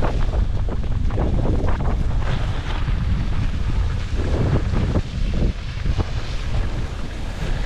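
Wind rumbling on the microphone while skiing downhill, with skis hissing and scraping over packed, tracked-up snow.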